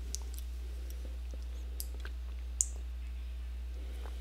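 A few faint clicks and one sharp click with a short high ring about two and a half seconds in, from a bottle being handled as a drink is taken, over a steady low hum.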